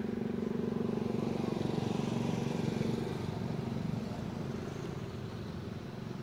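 Steady engine hum of a motor vehicle running nearby, growing louder over the first three seconds and then easing off.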